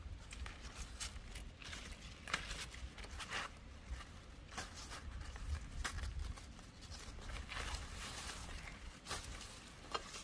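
Irregular rustles, scrapes and light knocks of handling or movement, over a steady low rumble.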